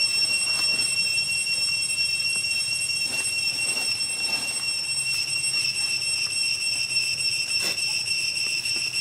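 Steady high-pitched whine of insects droning in the surrounding forest, one unbroken tone with a few faint clicks and rustles over it.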